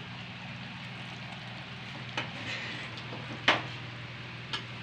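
A few light clicks of a serving spoon against the dish as the cooked musaqa'a is ladled out, the sharpest about three and a half seconds in, over a faint steady hum and hiss.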